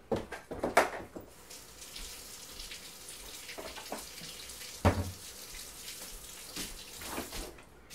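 Kitchen faucet running into a metal sink while a sponge is wetted under it: a steady stream that starts about a second in and is turned off shortly before the end. A single sharp knock is heard about halfway through.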